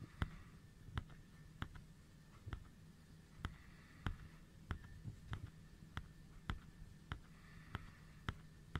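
Camera shutter clicking again and again, a sharp click about every two-thirds of a second, as a series of photos is taken, over a faint steady hum.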